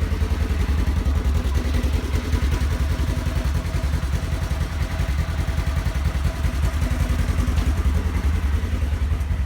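Polaris General side-by-side's engine idling steadily.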